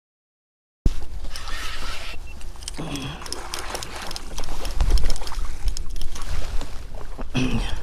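Low wind rumble with water and kayak-hull noises and scattered small knocks. A brief voice sounds twice.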